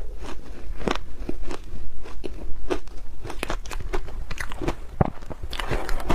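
Crunchy pink ice being bitten and chewed close to the microphone: irregular sharp crunches and cracks, several a second, with one louder crack about five seconds in.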